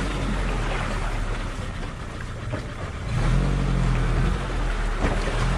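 Off-road 4x4 engine running, growing louder and rising in pitch about three seconds in as it is given throttle, with a few knocks and rattles over it.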